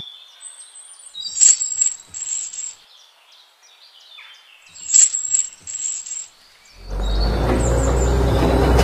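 Short bursts of bird chirping over a quiet background. About seven seconds in, a loud, steady sound with a deep hum starts up and keeps going.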